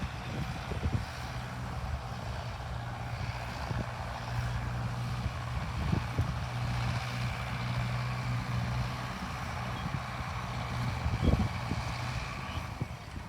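Mahindra Arjun Novo 605 DI tractor's diesel engine running steadily under load while driving a Shaktiman rotavator through the soil, with a few sharp knocks.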